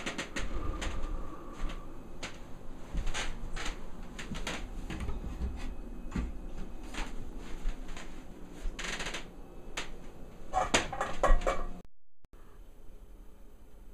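Scattered clicks and knocks, with a denser burst of clattering about ten and a half seconds in; the sound cuts out briefly near twelve seconds.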